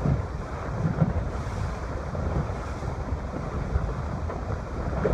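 Wind buffeting the microphone on a sailboat sailing upwind in a fresh breeze, with water rushing along the hull.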